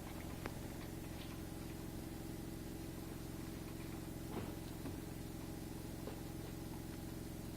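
Steady low machine hum, with a few faint knocks and clicks as the cart's shelf and legs are handled into place.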